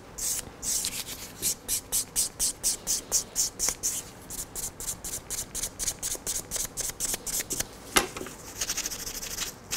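A nail file rubbed quickly back and forth over an acrylic nail, about four short rasping strokes a second, smoothing away the fine file scratches on the finished square nail. A single sharp click comes about eight seconds in.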